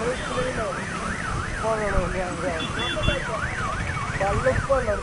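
Electronic emergency-vehicle siren in a fast yelp, its pitch sweeping up and down a little over twice a second.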